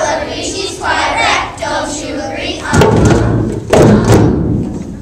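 Children's voices singing or chanting together. Then come two loud thuds about a second apart, hand-drum strikes close to the microphone.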